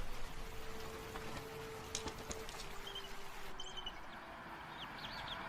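A few short, high bird chirps, sparse and faint, over a steady hiss, with soft held tones underneath.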